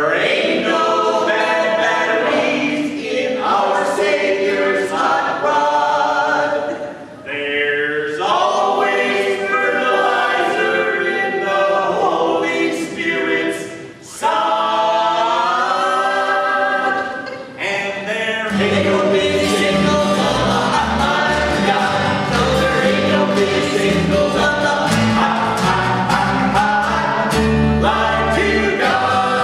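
Gospel quartet singing in close harmony, unaccompanied at first. About two-thirds of the way through, a band comes in under the voices with a low bass line.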